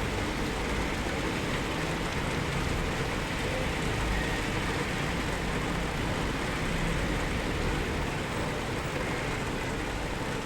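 Steady rainfall heard from indoors: an even, unbroken wash of noise with a low rumble underneath.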